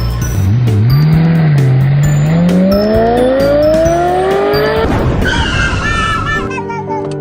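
Car engine revving, its pitch climbing steadily for about four seconds, then a burst of noise and a high tyre squeal, over background music.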